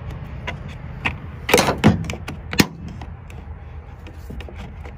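Steel snap ring being worked around into the groove of a plastic PTO shaft guard collar with a flat screwdriver: irregular sharp clicks and scrapes, loudest about a second and a half in and again a second later, over a low steady hum.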